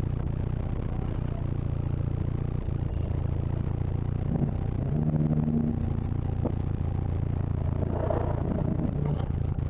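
Off-road SUV engine running low and steady as the vehicle crawls over rocks, revving up briefly about halfway through before settling again, with a little clatter.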